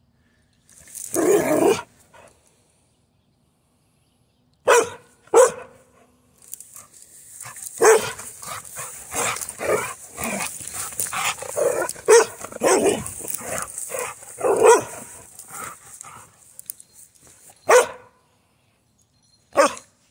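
Carolina dog barking in excited play: a drawn-out bark about a second in, then single barks, a rapid string of barks in the middle, and two single barks near the end.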